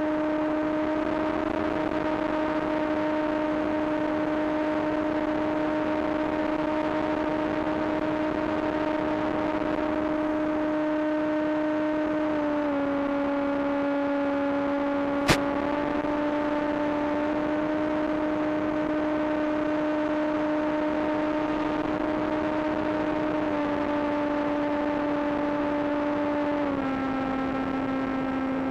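Small electric RC plane motor and propeller running with a steady whine. Its pitch steps down slightly a few times, and there is a single sharp click about 15 seconds in.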